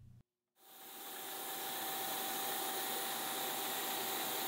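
Vertical milling machine running with a steady hiss and a thin steady whine, cutting the radius around a part clamped on the rotary table. It starts about half a second in and rises over a second to a steady level.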